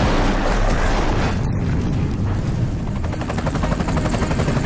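Tail of an explosion sound effect dying away over the first second and a half, then the fast rhythmic chop of an attack helicopter's rotor blades coming in from about three seconds in.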